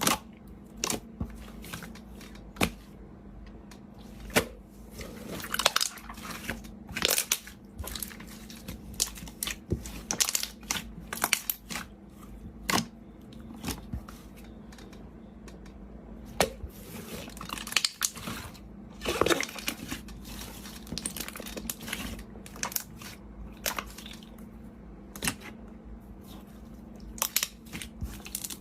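Slime being squeezed and poked by hand, making irregular sticky pops, clicks and crackles, with a faint steady hum underneath.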